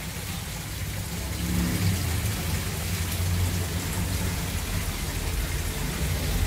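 Steady hiss of falling rain, with a low rumble that grows louder about two seconds in.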